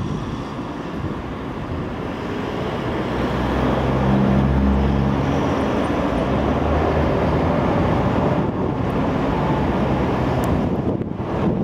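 Steady traffic rumble from passing road vehicles, swelling around the middle as a heavy engine hum comes through.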